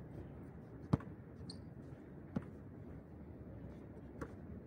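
Basketball bouncing on a hard outdoor court: three separate thuds, roughly one every second and a half, the first the loudest, over a steady low background rumble.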